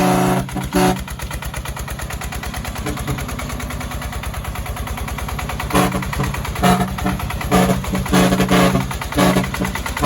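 Horn on a công nông farm truck sounded in short toots: one at the start, then after about five seconds of the engine alone, a quick run of about seven short blasts near the end. Underneath, the truck's single-cylinder diesel engine chugs steadily.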